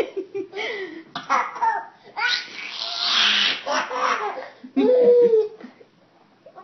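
A baby laughing and babbling in short bursts, with a longer breathy laugh in the middle; it stops about a second before the end.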